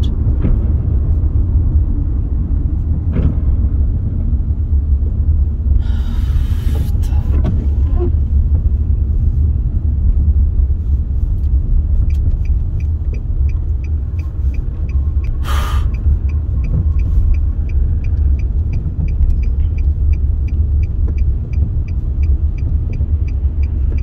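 Steady low rumble of a car's road and engine noise heard from inside the cabin while driving through a blizzard. Two brief whooshes cut across it, about six and fifteen seconds in, and from about halfway a light regular ticking comes in at about two ticks a second.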